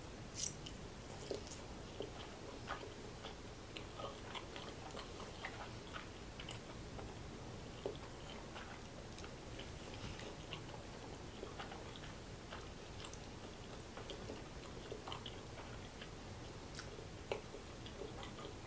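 Close-up chewing of soft spiral macaroni and cheese, faint and wet, with a few light clicks.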